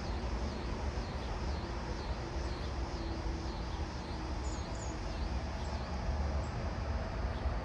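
Scissor grinder cicada (Neotibicen pruinosus) calling: a high, rhythmic pulsing buzz of about two pulses a second that fades away around two thirds of the way through. A steady low rumble runs underneath.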